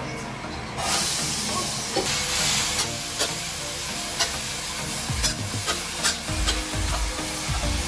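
Food sizzling as it is stir-fried in a hot pan, the sizzle jumping up about a second in, with scattered clicks and scrapes of a spatula against the pan.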